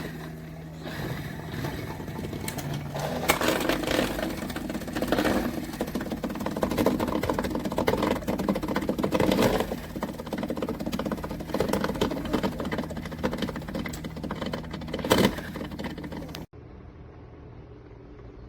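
Small electric motor running loudly with an uneven, rattly whir over a steady low hum, cutting off suddenly near the end.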